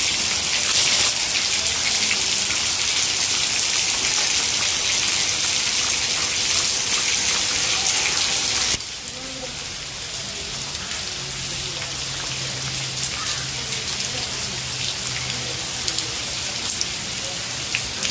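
Heavy rain falling steadily on foliage, a dense hiss. About nine seconds in it cuts to softer rain with scattered drops pattering on leaves, over a faint low hum.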